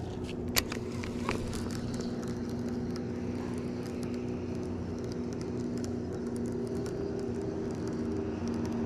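Steady hum of a boat motor, with a sharp click about half a second in and a lighter click just after a second.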